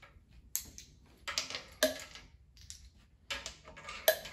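Light metallic clicking and clinking of a spark plug socket on a long extension as loosened spark plugs are unscrewed from the cylinder head of a Ford 4.6L four-valve DOHC V8, in three short clusters with a sharper click near the end.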